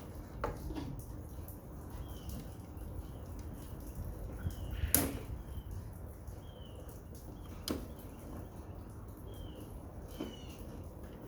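A few sharp clicks and knocks of parts being handled while an air-conditioner unit is taken apart, the loudest about halfway through. Faint short high chirps recur in the background over a low hum.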